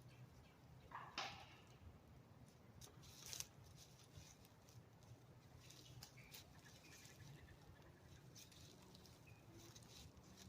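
Near silence with faint scattered rustles and clicks, two of them a little louder about a second in and about three and a half seconds in.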